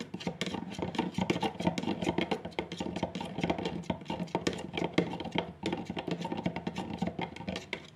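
Metal spoon stirring melted soap base in a plastic measuring jug, clicking and scraping against the jug in quick, irregular taps as food colouring is mixed in.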